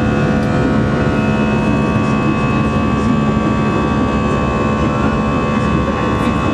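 Jet airliner engines during the climb after take-off, heard inside the passenger cabin: a steady rush of noise with several steady whining tones over it.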